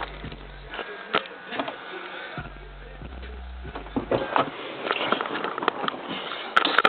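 Subwoofer in a sealed box playing deep bass notes in two stretches, stopping abruptly about a second in and again near the middle, with scattered clicks and handling rattle in between.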